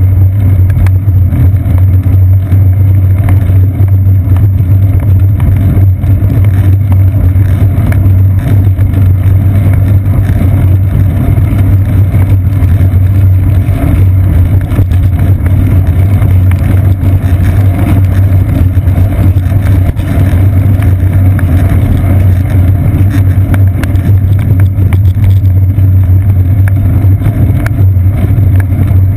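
Loud, steady low rumble of wind and road vibration picked up by a seat-post-mounted GoPro Hero 2 in its housing as the bicycle rolls along pavement.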